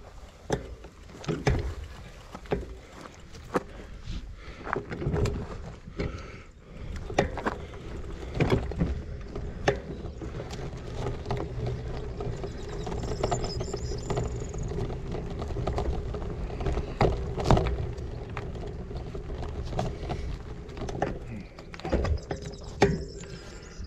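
Gravel bike running over a rough track, with frequent sharp knocks and rattles from bumps in the surface over a noisy rush of tyres and wind, and a steady hum through the second half.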